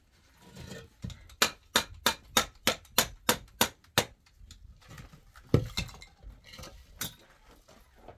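A quick run of about ten sharp knocks, roughly three a second, then two single knocks, the first of these the loudest of all.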